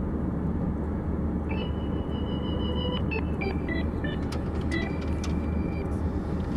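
Steady low rumble of a car on the move, its road and engine noise heard from inside the cabin, with a few faint high notes over it.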